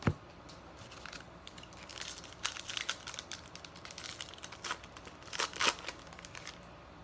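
Plastic trading-card pack wrappers crinkling and tearing as packs are opened by hand. There is a sharp snap at the start and irregular crackles after it, loudest a little past halfway.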